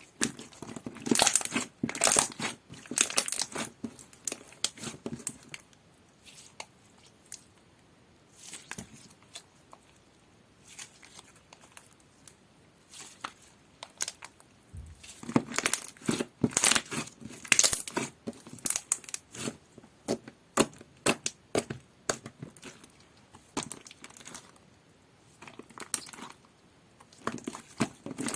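Sky-blue avalanche slime being handled, giving clusters of crackling, crinkling and popping clicks, with quieter stretches of only a few clicks between.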